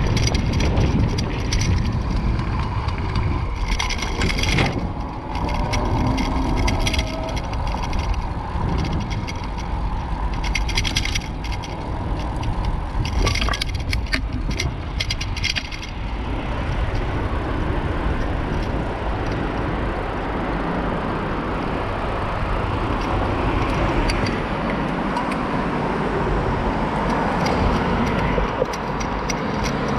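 Bicycle rattling and clattering over block paving, its metal front rack shaking, over a low wind rumble. About halfway through the clatter stops, and the steady noise of tyres and passing road traffic takes over.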